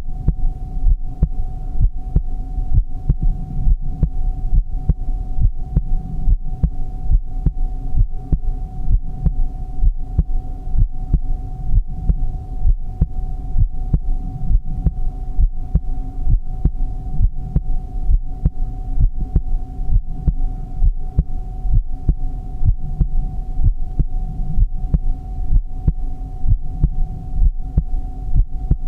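Human heartbeat, a steady, even run of low thumps, with a steady hum underneath.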